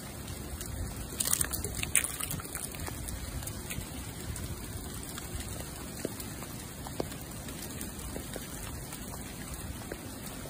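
Steady hiss and patter of freezing rain, with a few sharp clicks about one to two seconds in.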